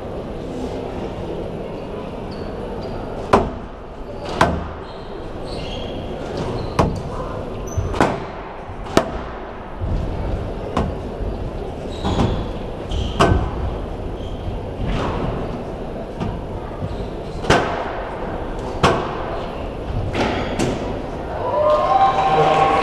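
Squash rally: sharp cracks of the ball struck by the racket and slapping the walls of a glass court, about one every second or so at an uneven pace. Near the end the hits stop and spectators' voices rise.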